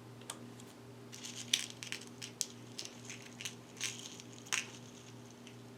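Scattered small clicks, ticks and scrapes of hard plastic and metal laptop parts being handled as an SSD is fitted and screwed into the drive bay. A steady low electrical hum runs underneath.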